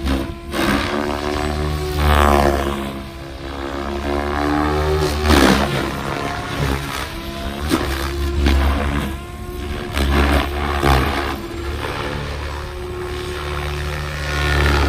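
Electric-powered SAB Goblin 700 RC helicopter flying aerobatics. Its rotor blades whoosh in repeated loud swells, and the motor and gear whine slides up and down in pitch as the head speed and loading change.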